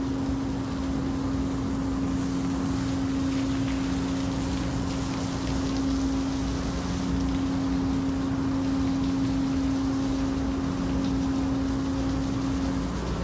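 Ship's engines and machinery humming steadily, with one constant tone over a low drone, and a steady hiss underneath. The tone breaks off briefly near the end.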